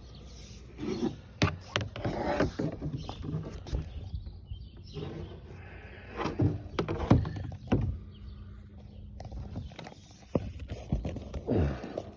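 Two-piece kayak paddle being worked together by hand: repeated clicks, knocks and scraping as the shaft is pushed into the metal ferrule with its spring push-button.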